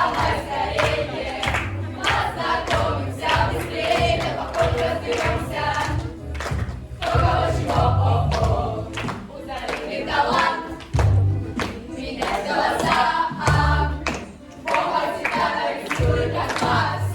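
A group of voices singing together over music with a heavy bass beat and sharp percussive hits.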